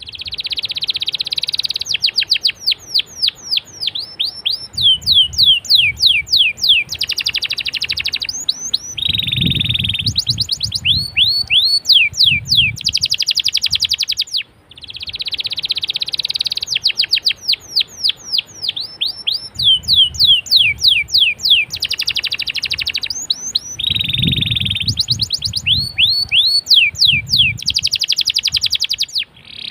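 Domestic canary singing a long, continuous song of fast trills and rapid falling rolls. There is a brief break about halfway, after which the same run of phrases comes again.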